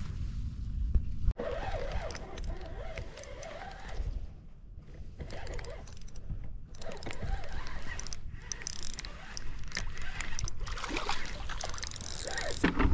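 Clothing and hands rubbing and rustling against the microphone of a body-worn camera, over a steady low wind rumble, with scattered small clicks of handling; the rustling grows busier in the second half.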